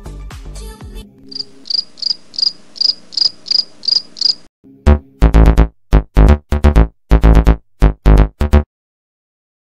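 A cricket-chirp sound effect, with a high chirp about every 0.4 s for about three seconds, following the end of a music track. Then a rapid series of about a dozen very loud, short pitched blasts cuts off abruptly near the end.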